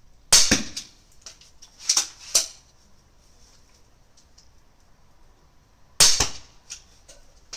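Two sharp snaps of a repeating pistol crossbow (a modified Alligator 2) shooting, about six seconds apart, with a couple of lighter clacks in between.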